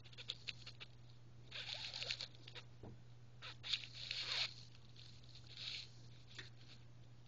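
Kitten clawing and batting at hanging fabric: faint scratchy rustling in several short spurts.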